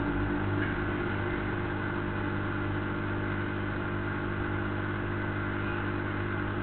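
Steady background hum with a low rumble and hiss, several unchanging tones held throughout.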